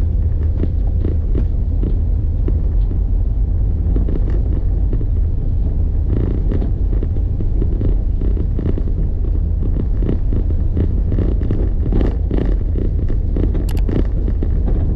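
Steady low rumble of a vehicle on the move, with wind buffeting the microphone. Frequent short knocks and rattles from the ride over the road come thicker in the second half.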